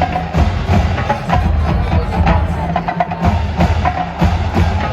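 Marching band drumline playing a steady beat: sharp, rapid clicks like rim shots or wood blocks over low, pitched bass drum notes.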